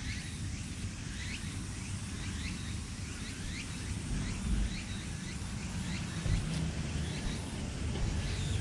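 Outdoor ambience: a bird chirping repeatedly in short curved notes, about two a second, over a steady low rumble.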